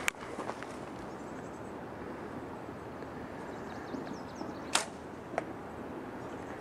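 Compound bow being shot: a sharp snap of the release a little before five seconds in, then a fainter smack of the arrow striking the 3D target about half a second later.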